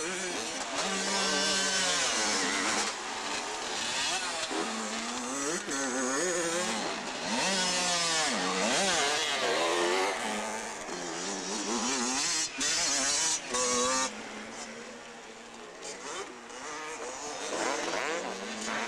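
80cc two-stroke motocross bikes revving hard and easing off around a dirt track, the pitch of several engines rising and falling as they shift and corner. The engines grow fainter about three quarters of the way through.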